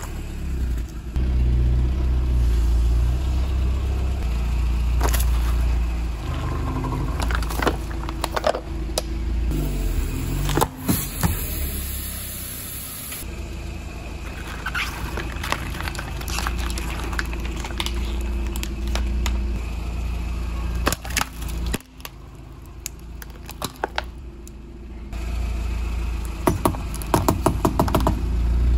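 Car tyre rolling slowly over things on concrete and crushing them, with a low engine rumble underneath: plastic and aluminium crackling and popping, scraping, and squelching jelly. Near the end comes a fast run of sharp cracks as plastic sticks split under the tyre.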